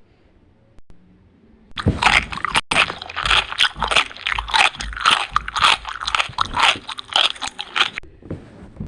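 Loud, rapid crunching of food being bitten and chewed, mukbang-style, starting about two seconds in and stopping abruptly near the end.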